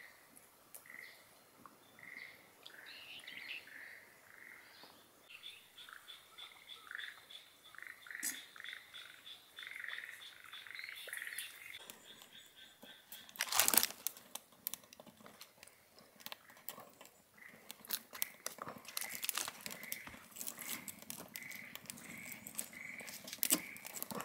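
Frogs calling in a steady series of short croaks, with a thin high trill for several seconds in the middle. About 14 seconds in comes one sharp knock, the loudest sound here, and after it the frequent small crackles of a wood fire in a barrel stove as split logs are fed in, with the frogs still calling.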